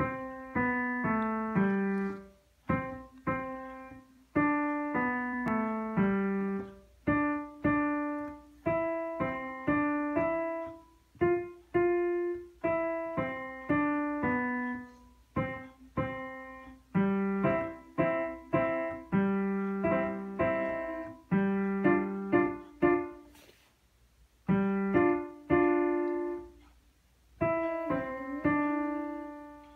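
Digital piano playing a simple melody in short phrases of single notes and small chords at a slow, even pace, with brief pauses between phrases.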